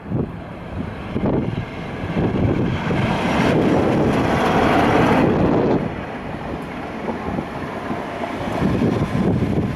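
Class 47 diesel locomotive with a Sulzer V12 engine passing close at speed and working hard, with the wheels running on the rails, followed by a Class 68 diesel locomotive. The sound is loudest about three to six seconds in, as the 47 goes by.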